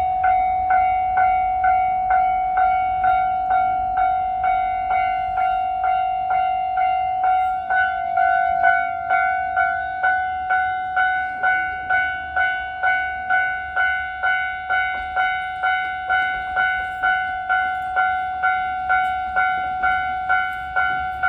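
Station train-approach warning device sounding a Japanese railway-crossing alarm: a ringing bell-like tone struck about twice a second without a break, signalling that a train is approaching.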